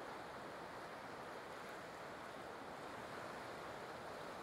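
Faint, steady hiss of distant ocean surf on a beach.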